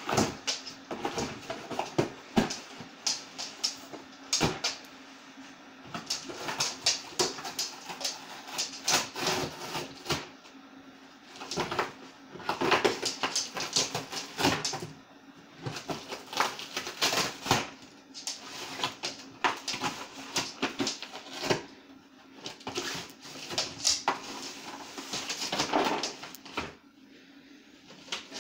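Dog nosing, pawing and tearing at a cardboard box to get food out of it: cardboard scraping, crackling and ripping in bursts of a second or two with short pauses.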